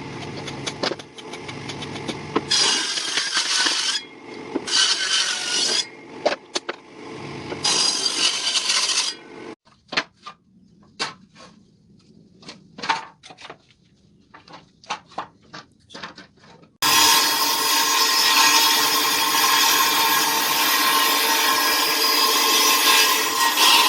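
Woodworking tool noise on wood: stop-start bursts of a power tool for about nine seconds, then a run of separate sharp knocks, then a dense steady sound from about seventeen seconds in.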